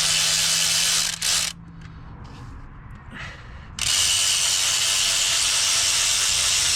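A handheld power tool running at speed, backing out the bolts of an engine's valley pan. It stops about a second in after a short extra burst, then runs again for about three seconds from the middle onward.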